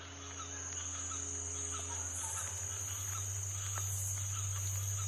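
Nature ambience: a steady high-pitched insect chorus, with small chirps repeating about twice a second over a low hum.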